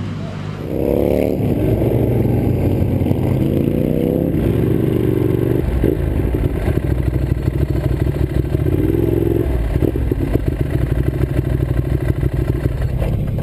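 Motorcycle engine running close by, its pitch rising and falling again and again as the throttle is blipped, over a steady low rumble with some clatter.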